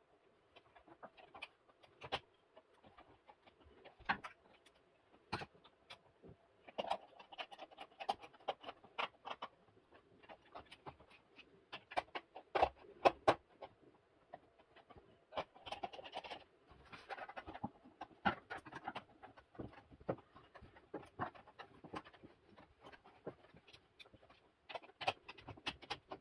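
Hands handling insulated wires and plastic parts around a DIN-rail contactor: irregular small clicks and knocks with short scratchy rustles of cable being moved.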